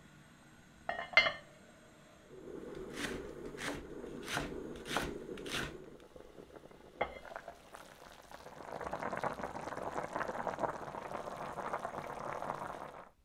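A lid is set onto a heavy enamelled pot with a sharp clank about a second in. Next comes a low hum with five evenly spaced sharp ticks. Over the last five seconds, chicken soup broth bubbles at a boil.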